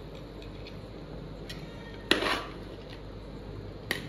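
Slotted metal ladle scooping par-boiled rice and knocking against metal cooking pots: a loud clank about two seconds in with a short ring, and a sharper knock near the end, with a few light clicks in between.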